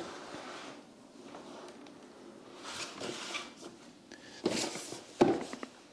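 A cardboard product box being handled: soft rubbing and rustling, with two sharp knocks near the end.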